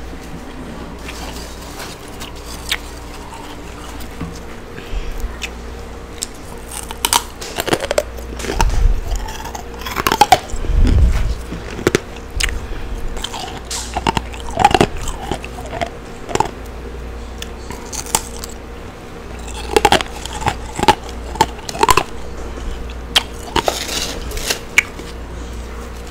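Chewing freezer frost close to a microphone: irregular crisp crunches and bites, thickest in the middle and near the end, over a steady low hum.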